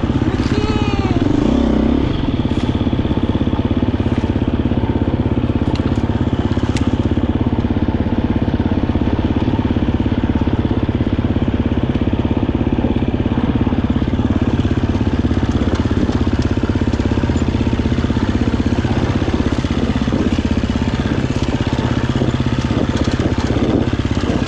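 Husqvarna FE 350 dirt bike's single-cylinder four-stroke engine running steadily at low revs while it is ridden slowly over a rocky trail, with a brief rise and fall in revs about a second in.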